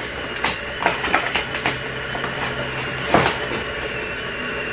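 Kitchen handling noises: a string of light clicks and knocks, the loudest about three seconds in, as a coffee press and coffee packet are handled, over a steady background hum.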